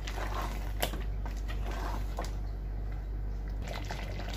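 A spatula stirring and scraping through thick curry gravy in a cooking pot, with a few sharp clicks as it knocks against the pot, over a steady low hum.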